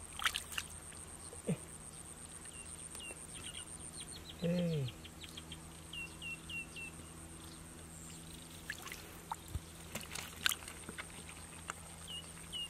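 Hands splashing and sloshing in shallow muddy water while groping in the mud for catfish, in short scattered splashes. A brief grunt about four and a half seconds in, and small quick chirps in groups of three or four.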